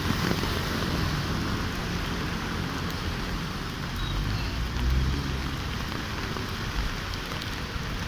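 Heavy rain falling steadily, with a low rumble swelling briefly about five seconds in.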